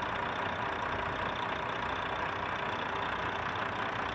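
Steady mechanical hum of the Volvo D13's fuel system being primed, diesel pumped into the newly fitted filter housing until it is full, without breaks or strokes.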